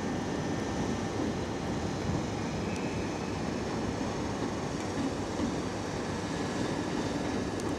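Class 313 electric multiple unit moving slowly through the station, a steady, even running noise with no distinct clicks or knocks.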